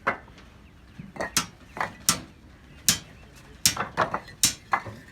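A series of sharp, irregular clicks and knocks, about a dozen over five seconds, some coming in quick pairs.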